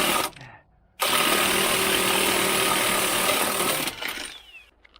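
Impact wrench hammering on a nut: a short burst at the start, then a run of about three seconds that cuts off.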